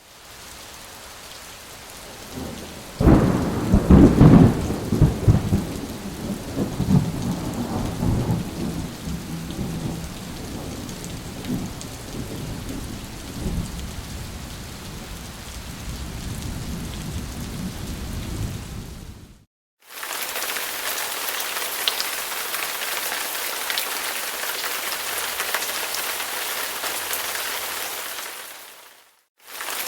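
Steady rain falling. About three seconds in, a loud thunderclap breaks and rolls on as a low rumble that fades over the next fifteen seconds or so. After a brief silence, heavier rain hisses steadily, with many separate drop hits.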